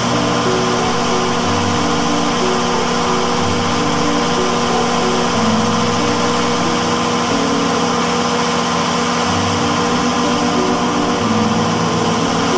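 Large generator-set engine running steadily at constant speed.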